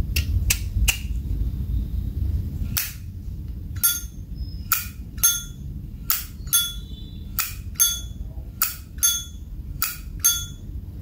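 Brass Zippo lighter's lid being snapped open and shut over and over: about fifteen sharp metallic clacks at an uneven pace, each with a short ring.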